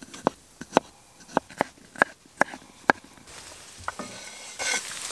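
Knife blade knocking on a small wooden chopping board, about two sharp knocks a second while chorizo is cut. Near the end, the chopped chorizo scraped into a hot cast-iron skillet on a wood stove starts to sizzle.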